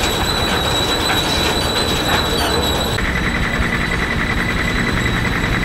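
Steam-powered portable sawmill running, its saw blade giving a loud, steady high whine. About three seconds in, the whine changes to a lower pitch.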